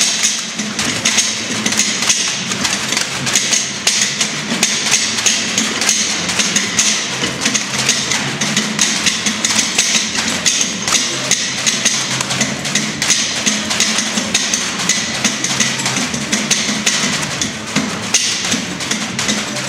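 Heavy battling ropes slapping the floor again and again in rapid alternating waves, starting abruptly and running on as a fast, continuous string of slaps.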